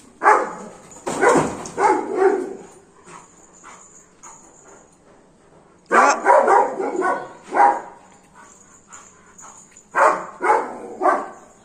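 Golden retriever barking aggressively in three quick bursts of barks, a few seconds apart: territorial barking to chase off monkeys.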